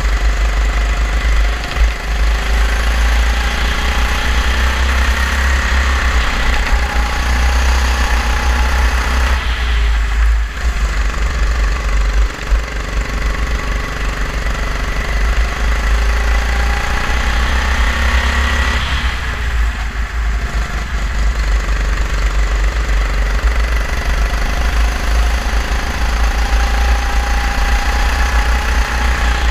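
Go-kart engine heard from on board, its pitch climbing steadily and dropping off sharply twice, about a third and two thirds of the way through, as the throttle is lifted. A heavy, constant low rumble of wind on the microphone runs under it.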